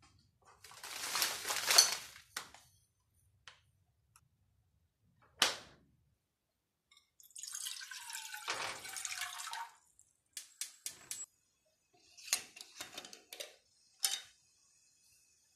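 Kitchen handling sounds: a burst of rustling at the open freezer, a single knock, then water poured from a glass measuring jug into a saucepan for about two and a half seconds, followed by a quick series of clicks and taps as a glass jar is handled.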